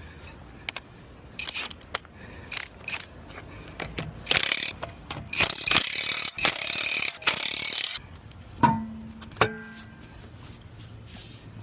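Impact wrench running in several short bursts, loosening a car's lug nuts, after a few light clicks. Near the end come two sharp metal clanks that ring briefly.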